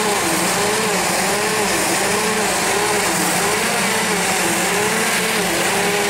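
A propane-fuelled Toyota forklift engine idling roughly, its note rising and falling about once a second. It is running rich and rough because of a vacuum leak.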